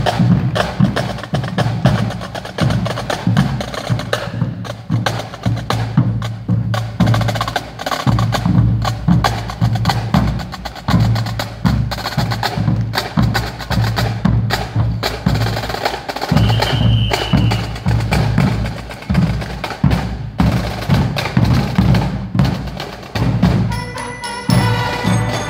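Marching drum corps playing a street cadence: rapid snare drum sticking and rolls over a steady bass drum beat. A short high whistle-like tone sounds about sixteen seconds in, and pitched band music starts near the end.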